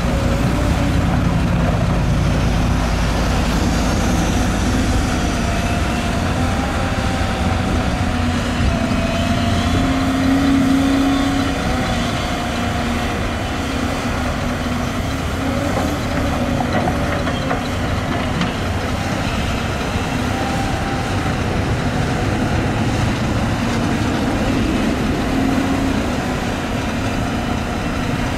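Excavator's diesel engine running steadily under load, with a whine that wavers up and down in pitch over the rumble.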